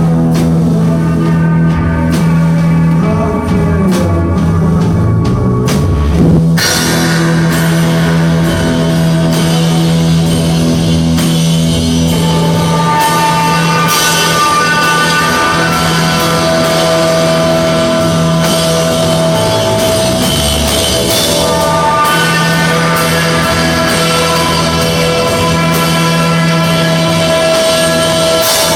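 Live rock band playing an extended instrumental passage with guitars and drum kit over a steady, held bass note; the drums and cymbals come in fuller about six seconds in.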